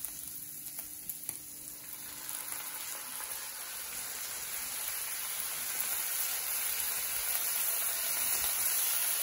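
Seasoned ground beef sizzling in a hot nonstick skillet as tomato sauce is poured over it. The sizzle grows steadily louder through the second half, with a few light clicks near the start.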